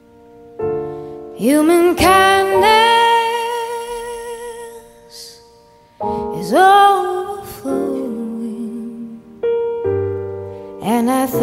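Slow song with a woman singing long, wavering phrases over piano chords. The piano comes in just after the start, the voice about a second and a half in, and both stop briefly about six seconds in before the singing resumes.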